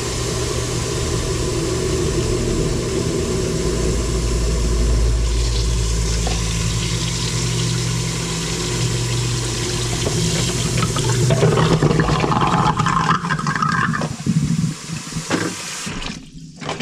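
Kitchen sink draining through the freshly snaked drain, the faucet running into it, over the steady low hum of the garbage disposal motor running. From about eleven seconds in, dishes clatter in the sink, and the sound drops away near the end.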